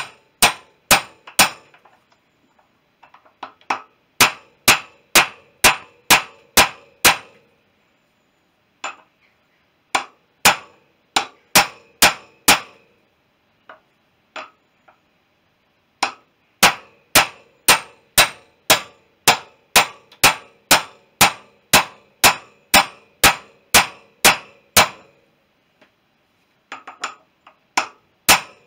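Hammer striking a steel socket used as a drift to drive a sealed wheel bearing into a BSA B31 front wheel hub: runs of sharp, ringing metal-on-metal blows about two a second, broken by short pauses. The chilled bearing is still a tight fit in the hub.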